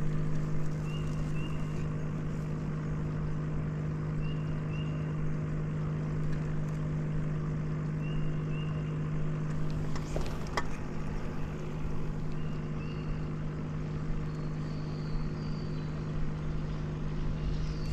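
Electric trolling motor on a small fishing boat running with a steady low hum. Faint paired bird chirps come every few seconds over it.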